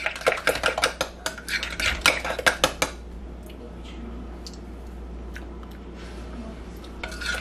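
Metal spoon stirring and clinking against a glass mixing bowl of creamy mayonnaise-and-yogurt dressing, with rapid clinks for about the first three seconds, then only a few light taps.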